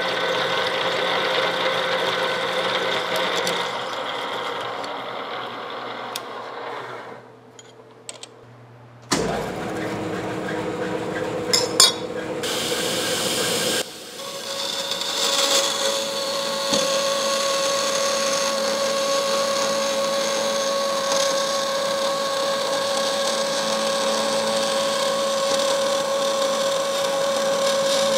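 A drill press boring through steel plate, its motor running steadily, then dying away. After a few seconds of other shop noise with a couple of sharp clicks, a vertical bandsaw runs steadily with a humming tone as a steel plate is fed into the blade.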